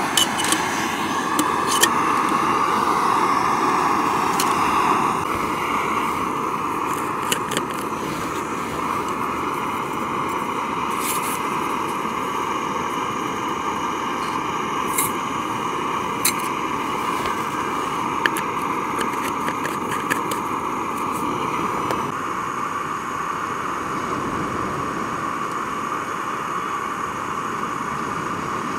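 Fire-Maple integrated canister gas stove burning steadily with a loud hiss as it heats water, with a scattering of light metal clicks and clinks, most of them in the first twenty seconds.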